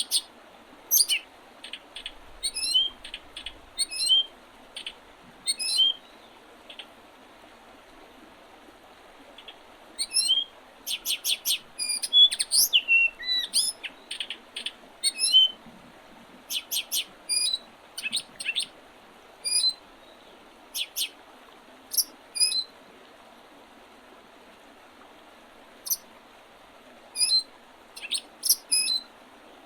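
Small songbirds calling in early spring: a scattered run of short high chirps and quick rising notes, busiest in the middle, over a faint steady hiss.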